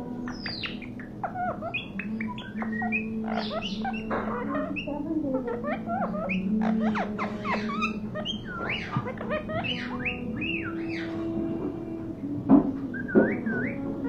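Rose-ringed parakeet chirping and whistling: a long run of quick, shrill calls that sweep up and down in pitch. Two sharp knocks come about a second apart near the end.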